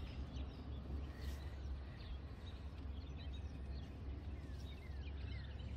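Outdoor background: a steady low rumble with faint, short bird chirps scattered through it, several quick falling chirps coming close together near the end.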